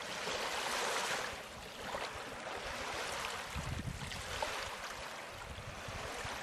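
Ocean waves washing in: a steady rush of surf that swells about a second in and again around four seconds in.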